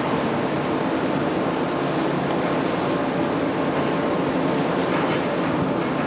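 Steady drone of a cargo ship's engine with water rushing along the hull, and a few faint clicks about four and five seconds in.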